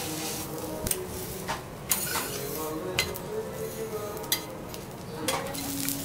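Steel teppanyaki spatulas scraping and clinking on a hot griddle as garlic fried rice is pressed flat and turned, over a steady sizzle. Several sharp metal clinks come about a second apart.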